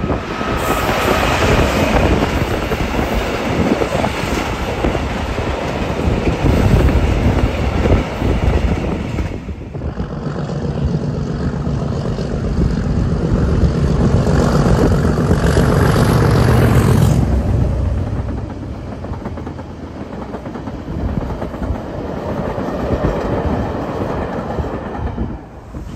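A Class 66 diesel locomotive passes hauling bulk wagons, its engine running over the clatter of wagon wheels on the rails. After a sudden break, a Class 37 diesel locomotive approaches and passes: its engine drone swells, is loudest about 15 seconds in, then eases off as the following vehicles roll by.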